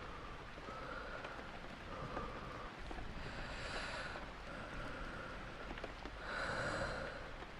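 Slow breathing over steady rain, with two louder breaths about three and six seconds in.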